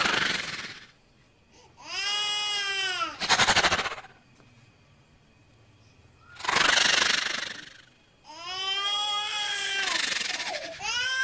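A young child crying in drawn-out wails, each rising and falling over a second or two. Harsh, noisy bursts come between the wails.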